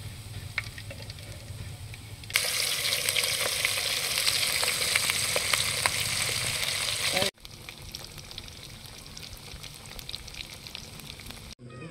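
Chicken 65 pieces coated in ground roasted rice deep-frying in hot oil, a steady sizzle full of small crackles. The sizzle suddenly gets much louder about two seconds in, then drops back abruptly about seven seconds in.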